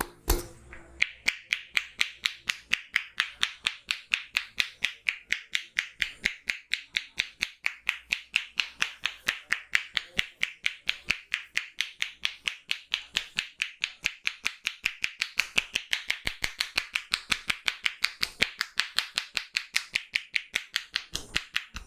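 Rapid, steady rhythm of sharp hand claps from a barber's percussive head massage, about five a second, going on for some twenty seconds.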